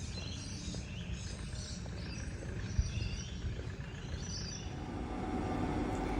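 Outdoor ambience with birds chirping intermittently over a low, steady rumble of background noise.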